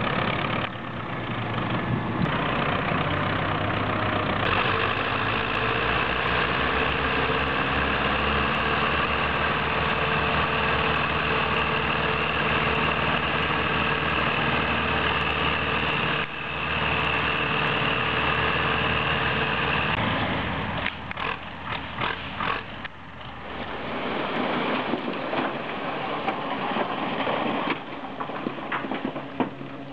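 Diesel engines of farm tractors and a heavy truck running steadily, broken by several abrupt cuts. About two-thirds of the way through, the engine sound gives way to a quieter, uneven rumble.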